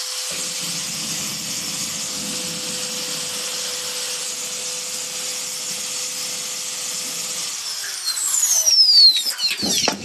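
Grinder with an abrasive disc running steadily with a high whine and hiss, stripping rust out of a metal channel on a car body. Near the end its pitch falls as it winds down, with a louder grinding burst just before it stops.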